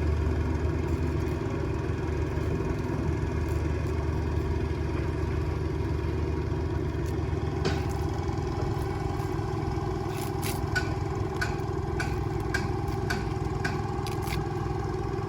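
Engine of a portable air compressor running steadily at a constant speed. In the second half, a string of sharp clicks, a little under two a second, sits over it.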